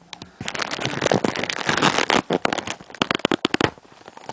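Packaging being handled and opened by hand: a dense run of sharp crackling and rustling that starts about half a second in and thins out near the end.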